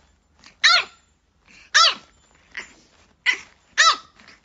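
French bulldog puppy barking: about four short, high yappy barks, each rising and falling in pitch, with a few fainter ones between.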